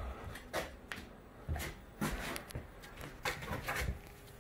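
Scattered light knocks, low thumps and rustling from movement and handling of a handheld camera, at uneven intervals.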